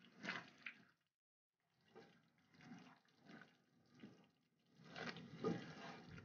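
Wooden spatula stirring thick, boiling gravy in a kadhai: faint wet strokes about one every 0.7 s, louder near the end.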